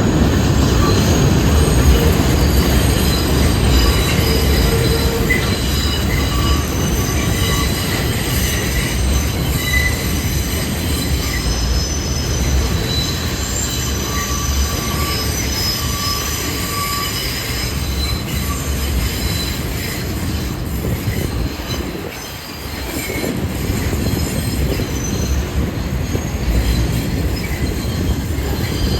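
New York City subway train (R142 cars) moving through the station, its wheels squealing in several high, wavering tones over a steady loud rumble. The sound dips briefly about three quarters of the way through, then builds again.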